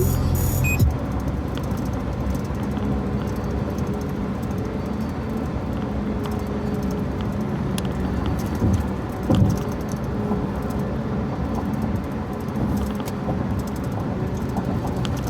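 Road noise inside a moving truck's cab: a steady drone with light, scattered rattling.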